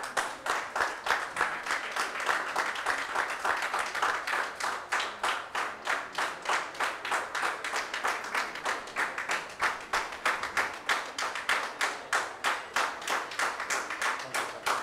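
Applause: hands clapping in a steady, even rhythm of about four claps a second.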